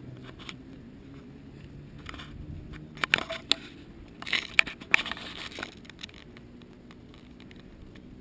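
Handling noise of a handheld camera: rubbing and scraping on the microphone with a cluster of sharp clicks, loudest from about three seconds in to just before six seconds.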